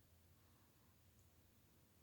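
Near silence: faint hiss and low hum, with no sound effects or music.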